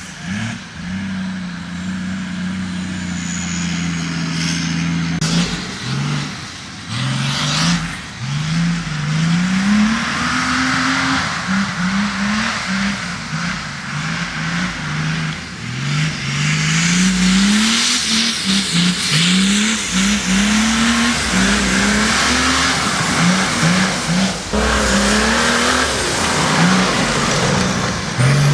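Mercedes-Benz OM603 straight-six diesel in an off-road buggy, revved hard over and over while the buggy drifts on a muddy course. It holds a steady high pitch for about the first five seconds, then climbs in quick, repeated rising revs, each cut short as the throttle is lifted.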